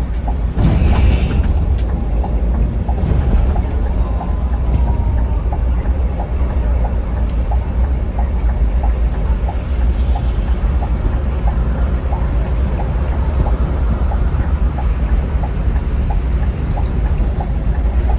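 Scania K360iB coach running at speed: a steady low engine and road rumble, with a short hiss about half a second in and a light, regular ticking about twice a second.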